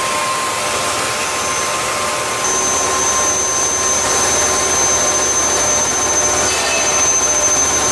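Steady hissing machine noise from a steel-beam processing line, with a faint high whine that comes in, along with a small rise in level, about two and a half seconds in.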